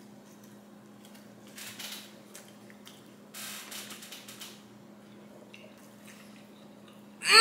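Someone biting into and chewing pepperoni calzone pizza: a few short, soft crunches and rustles, with quiet mouth sounds between. Near the end, a loud falling hum of a voice.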